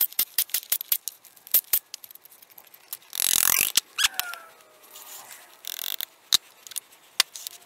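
Sped-up clicks and metallic clinks of tools, sockets and bolts while a single-cylinder EZGO golf cart engine's crankcase cover is unbolted and taken off, with a brief noisy whirr of a power tool about three seconds in.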